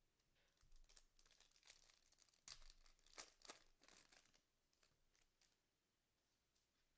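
Faint crinkling and tearing of a foil trading-card pack wrapper being ripped open, with the cards rustling, for about four seconds before it falls quiet.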